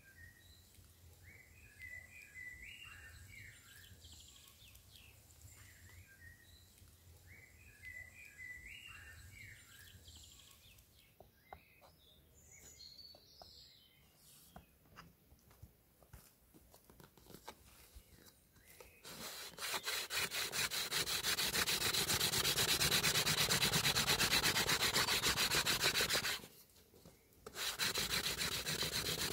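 A bird sings short warbled phrases, with a few light knocks. About two-thirds of the way in, a hazel hand-drill spindle spun between the palms in a dry bay laurel hearth board starts a loud, steady dry rubbing. It breaks off for about a second and then resumes: friction drilling to raise an ember.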